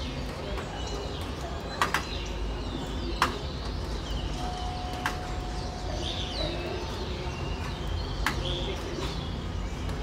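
Starlings chattering and whistling as they gather to roost, many short chirps overlapping, over a steady low hum of city traffic. A few sharp clicks stand out.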